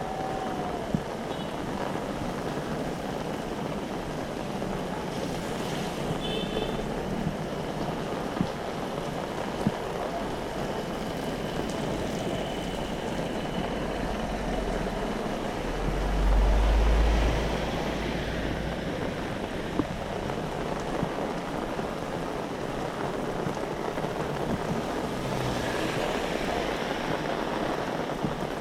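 Heavy rain falling steadily, with scattered sharp taps of drops. About halfway through comes a deep rumble of about two seconds, the loudest sound here.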